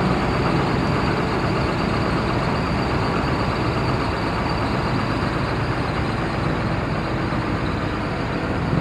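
Heavy diesel construction machine engine running steadily.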